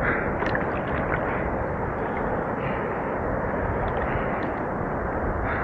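Steady rush of wind and lapping sea water on a handheld camera's microphone, with a man breathing hard as he catches his breath, a soft breath about every two and a half seconds.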